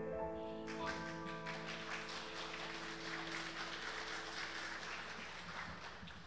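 A grand piano's final chord ringing out, with applause breaking in about a second in and dying away near the end.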